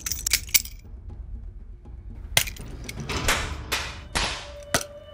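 Knife-fight sound effects: a few sharp metallic clicks at the start, then three quick swishes of a blade cutting the air and a sharp clink near the end, followed by a held ringing tone, over a low rumble.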